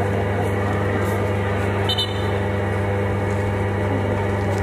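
Steady low electrical hum from a public-address loudspeaker system with its microphone left open, over a faint even background noise. A brief high chirp sounds about two seconds in.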